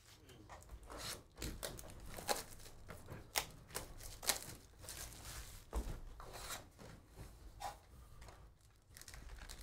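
Panini Prizm football hobby box being handled and opened by hand, its cardboard lid lifted and the foil card packs inside rubbing and sliding together: a string of irregular crackles, rustles and taps.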